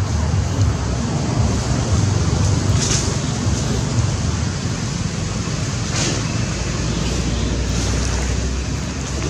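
Wind buffeting the microphone: a steady low rumble with hiss, with a few brief rustles of leaves and twigs.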